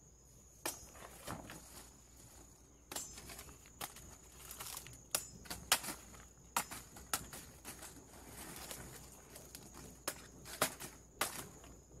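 Dry banana leaves and leaf sheaths crackling and rustling as they are handled and dropped on the ground, with irregular sharp cracks and footsteps on leaf litter. A steady high tone runs behind throughout.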